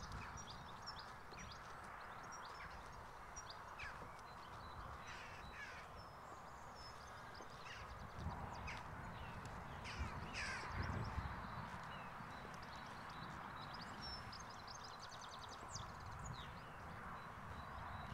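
Crows cawing several times, loudest around the middle, over other birds chirping.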